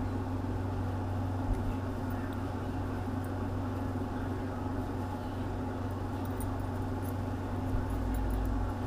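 A steady low mechanical hum, with a few faint light ticks in the second half as steel leader wire and hooks are handled.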